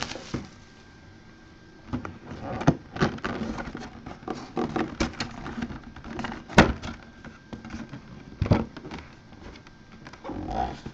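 Plastic shrink wrap crinkling and a cardboard mini-helmet box being handled and its flaps pulled open: a run of irregular rustles, taps and clicks starting about two seconds in, with a couple of sharper snaps in the middle.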